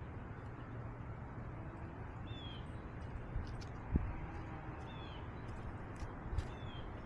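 Steady rumbling noise from a cat-worn camera moving outdoors, with a few faint short chirps and a soft thump about four seconds in.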